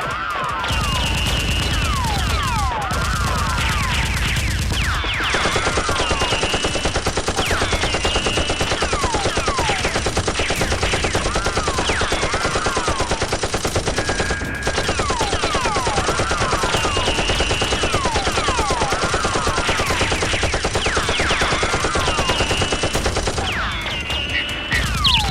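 Sustained rapid automatic gunfire, a battle sound effect laid over a Nerf fight, with repeated falling whistles through it. The fire grows denser about five seconds in and thins out near the end.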